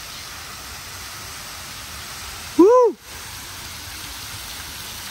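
Garden fountain jets spraying and splashing into a pond, a steady hiss of falling water. A little past halfway, one short, loud call rises and falls in pitch over about half a second, and the sound dips briefly right after it.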